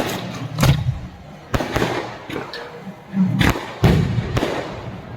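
Fireworks going off in a display: a rapid, irregular string of sharp bangs, roughly one or two a second, some followed by crackling.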